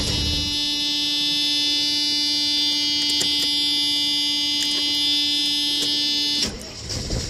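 A steady, high electric whine-buzz with many overtones comes from the 1988 Mercedes 300E while the ignition key is held turned to start it. It cuts off suddenly about six and a half seconds in, giving way to a quieter low noise.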